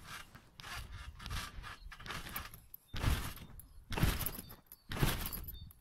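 Trampoline mat thudding and rustling as someone bounces on it, about one bounce a second from about three seconds in, with quieter scuffing on the mat before that.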